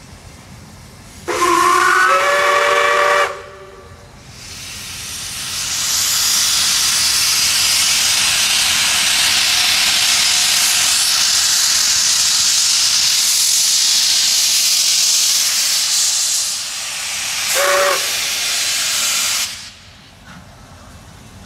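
SAR 620 class steam locomotive 621 sounds a whistle of several tones for about two seconds. A loud, steady hiss of steam from its open cylinder drain cocks then builds as it starts away. A short second toot of the whistle comes near the end, and the hiss then cuts off.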